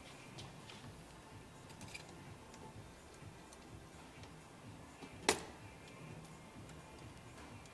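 Faint room tone with a few light clicks and ticks, and one sharp click a little over five seconds in.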